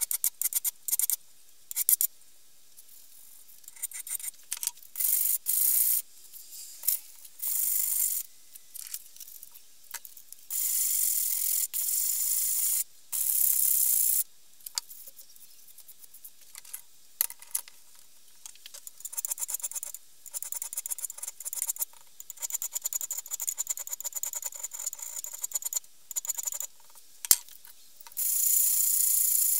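Steel axe head being sharpened by hand: rasping strokes of a hand file along the bit, then an abrasive block rubbed across the steel, in runs of strokes with short pauses between.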